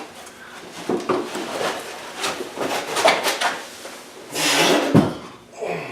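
Irregular scraping, rattling and knocks of parts and tools being handled, with a louder long scrape that ends in a heavy thump about five seconds in.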